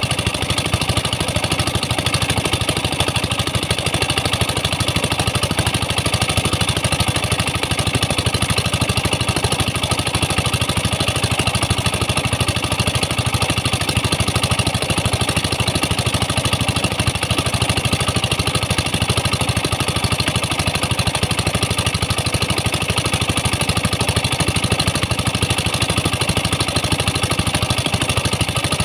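Engine-driven water pump running steadily at a constant speed, feeding the high-pressure water jets used to break up the tin-bearing sand.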